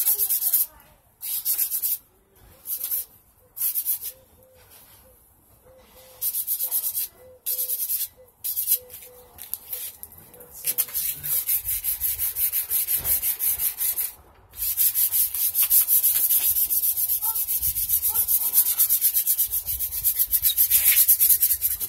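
Sandpaper being rubbed by hand over the painted steel frame of a mini bike, sanding through the old coats of paint with quick back-and-forth strokes. The strokes come in short spells with pauses for the first ten seconds or so, then run almost without a break, with one brief stop partway through.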